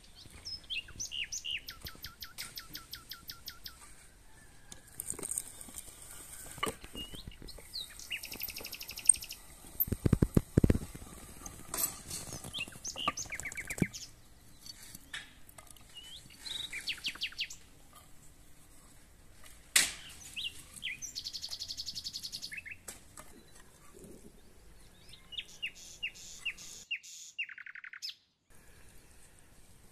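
Small songbirds chirping and trilling in repeated quick phrases. Several sharp knocks about ten seconds in and a single sharp click near twenty seconds stand out as the loudest moments.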